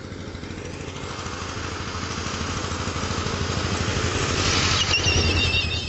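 A motor vehicle's engine approaching on the road, growing steadily louder over several seconds. Near the end a high, wavering tone joins it.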